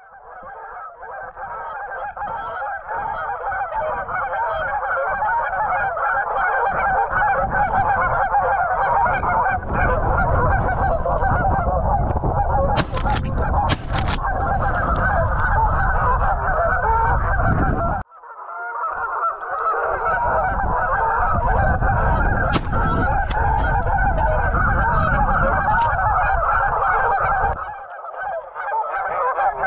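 A large flock of Canada geese honking, many calls overlapping into a continuous loud clamor, breaking off for a moment a little past the middle. Wind rumbles on the microphone through much of it.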